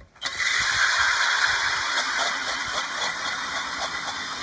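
Milwaukee 2704 M18 Fuel cordless hammer drill spinning an 8-inch Nils ice auger, its blades cutting down through the ice. The drill starts abruptly a moment in and then runs steadily at speed under load.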